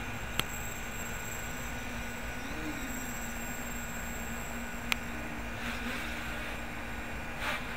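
Homemade 550-size quadcopter's motors and 8x5 props humming as it flies, the pitch bending up and back down about two and a half seconds in, over a steady hiss. Two sharp clicks, one near the start and one about five seconds in.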